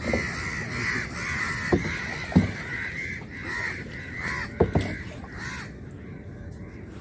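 Crows cawing over and over, several calls overlapping, dying away about five seconds in. Four sharp knocks land between about two and five seconds in.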